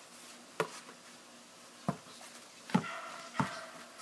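A basketball bouncing on hard ground, four bounces at uneven intervals, the loudest about three quarters of the way through.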